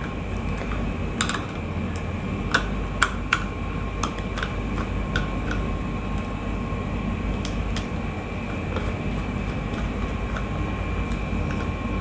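Scattered small clicks and taps of hands working a wire onto the coil terminal of a magnetic contactor, a few a second at most and irregular, over a steady background hum with a thin high whine.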